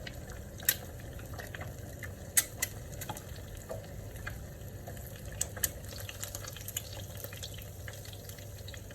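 Eggs frying in hot cooking oil in a pan: a steady sizzle with sharp spattering pops now and then, the loudest about a second in, near the middle and past halfway.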